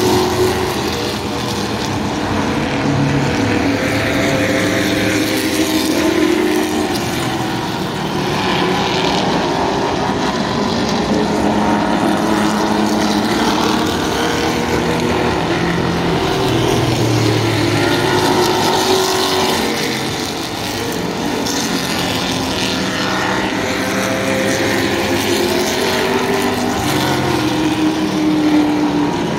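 A field of vintage stock cars with V8 and inline-six engines racing on a short oval. Several engine notes overlap, each rising and falling as the cars pass.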